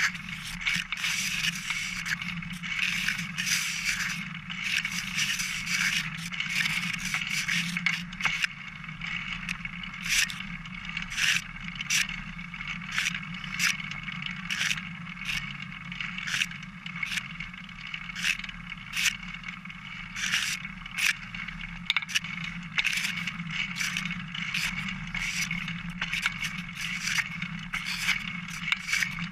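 Single-speed bicycle rolling along a trail, heard through a camera clamped to its top tube: steady tyre and frame noise with many irregular rattles and sharp knocks as the bike goes over bumps.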